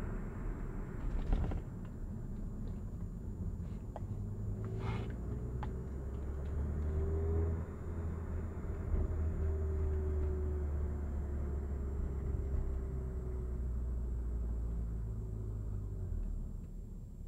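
Hyundai Avante AD (Elantra) driving, heard from inside the cabin: a steady low engine and road rumble with a few short ticks early on. It gets quieter near the end.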